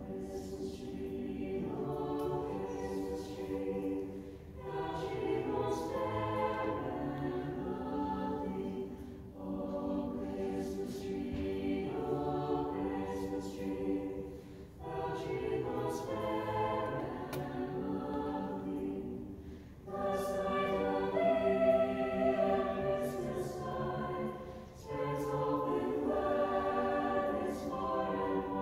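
Mixed choir of teenage voices singing a Christmas carol in several-part harmony, phrase by phrase, with short breaks between phrases about every five seconds.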